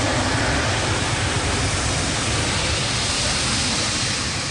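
Boeing 787 jet engines at taxi power, a steady rushing noise with a low rumble underneath.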